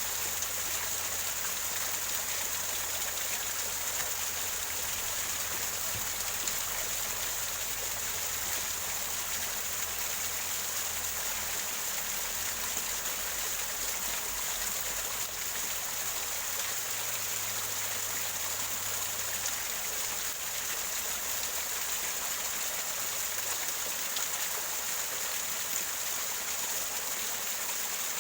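Small waterfall gurgling over rocks: a steady, even rush of falling water.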